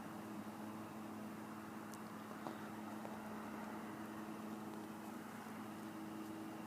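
Faint steady low hum made of two steady tones over a hiss, with a small click about two and a half seconds in.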